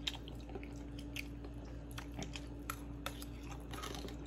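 Close-up mouth sounds of a man eating noodles from a spoon: scattered small wet chewing clicks and smacks, over a faint steady hum.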